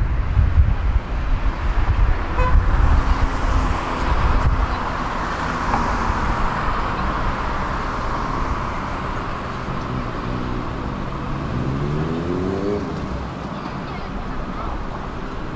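Heritage tram running on its rails: a heavy, uneven low rumble for the first few seconds, then a steady running noise. Near the end the traction motor's whine rises steadily in pitch.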